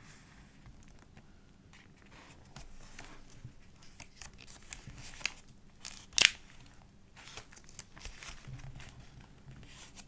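Pages of a thick, collaged paper journal being handled and turned: soft paper rustling and crinkling, with one sharp snap about six seconds in.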